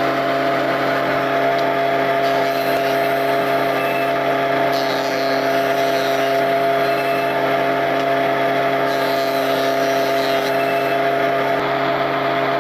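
Electric wood planer motor running steadily with a constant humming drone. A higher hiss swells and fades a few times, about 2, 5 and 9 seconds in.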